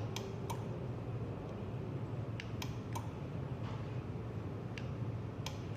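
A scattered series of about seven light clicks of plastic remote-control buttons being pressed, over a steady low hum.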